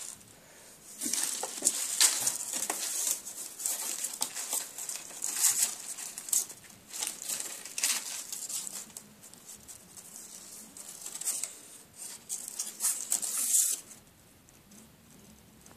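Dry autumn leaves rustling and crunching in irregular bursts as a ferret scrabbles about in them, dying away about fourteen seconds in.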